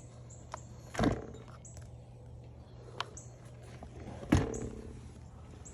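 Two heavy knocks about three seconds apart, with a few light clicks between, over a steady low hum: tools and parts being handled while a Suzuki RM250 dirt bike is taken apart.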